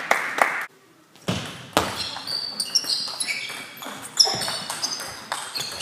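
Table tennis ball clicking off the rackets and the table in quick succession during a rally, a few hits a second, after a brief dropout of the sound near the start.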